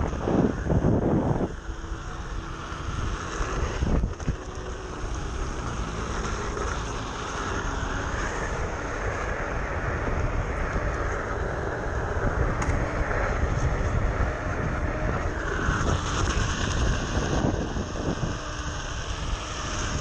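Wind rushing over the microphone and road rumble from a Onewheel XR electric board rolling at speed on pavement, with heavy buffeting gusts in the first second and a half.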